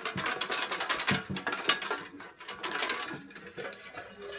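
Slips of paper with raffle names being shaken and stirred in a container before the next draw: a busy run of quick rattling and rustling.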